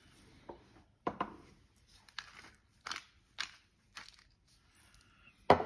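Hand spice mill being twisted to grind seasoning: a string of short dry grinding crunches, about two a second. A sharp knock near the end.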